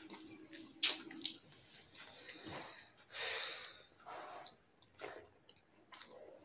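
Wet squelching and smacking of fingers mixing rice and curry on a steel plate while eating by hand, with a sharp click about a second in.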